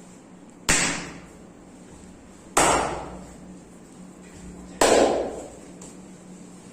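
Three loud, sharp hand slaps on the body during a massage, about two seconds apart, each fading away over about half a second.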